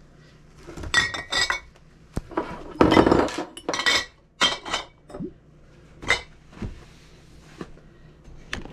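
Empty glass canning jars clinking and knocking against each other as they are set into a wicker basket, a run of irregular glassy clinks with the busiest cluster about three seconds in.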